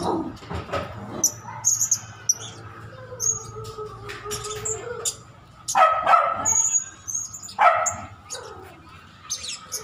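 Blue-crowned hanging parrot (serindit) giving short, thin, high-pitched chirps, with two louder bark-like calls about six and eight seconds in.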